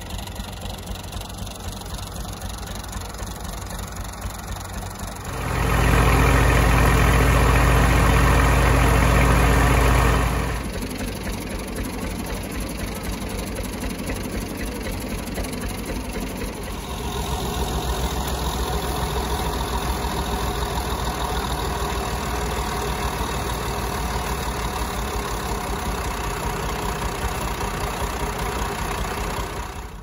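Tractor engine driving a wheat thresher through a belt and pulley, running steadily, much louder for about five seconds starting roughly six seconds in.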